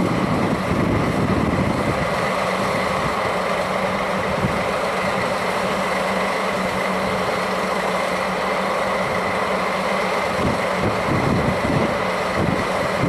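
A JNR Class DD51 diesel locomotive's twin diesel engines idling steadily after start-up, a constant hum with a high steady whine. Wind gusts buffet the microphone near the start and again late on.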